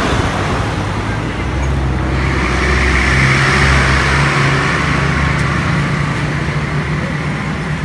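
Road traffic: a motor vehicle engine humming steadily over a continuous wash of road noise.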